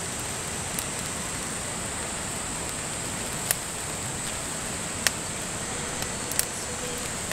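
Steady rush of a mountain stream with a campfire crackling, a handful of sharp snaps standing out over a steady high hiss.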